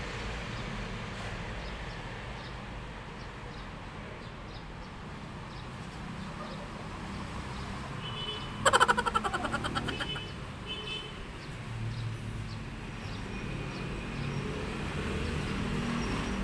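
Outdoor background of a low, steady rumble like distant road traffic. About halfway through comes one loud, rapid rattling burst that fades away over a second or so.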